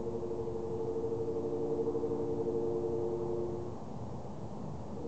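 Background music: a held chord of steady, gong-like tones that fades out about three and a half seconds in, with a new chord starting near the end.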